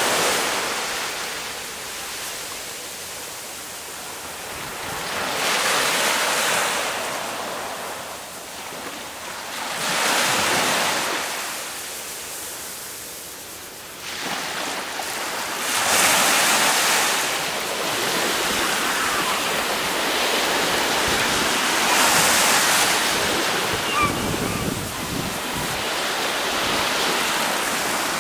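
Sea surf: waves washing in on a beach, the rush of water swelling and falling back every five or six seconds.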